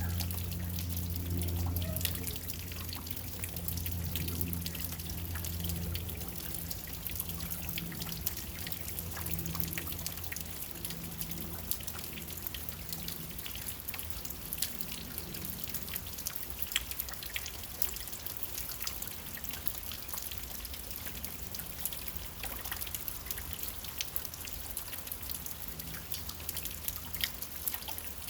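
Steady rain with many separate drops ticking and tapping over an even hiss. A low hum is heard in the first few seconds and fades to faint about six seconds in.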